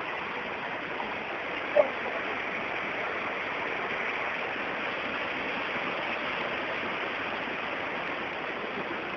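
Steady, even rushing of water from heavy rain and flooding, with one brief louder blip about two seconds in.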